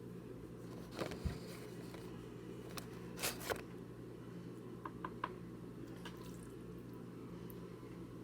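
Faint handling sounds of raw chicken being coated with sour cream and seasoning: soft wet squishes, with a few light clicks and rustles, over a steady low hum.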